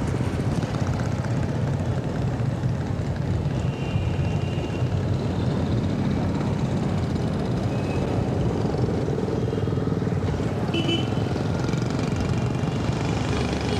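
Street traffic with motorbike and car engines: a steady low rumble of passing vehicles, with a few short high beeps.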